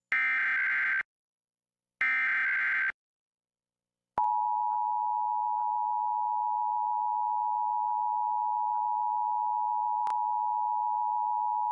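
Emergency Alert System broadcast: two short screeching SAME header data bursts about a second apart, then after a pause of about a second the steady two-tone EAS attention signal (853 and 960 Hz) starts and holds, announcing an alert, here a required monthly test.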